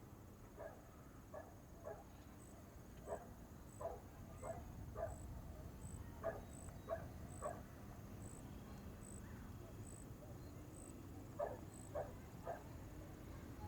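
A dog barks faintly in short bouts of one to three barks over a low, steady outdoor rumble. A high, thin chirp repeats regularly about twice a second through the middle of the stretch.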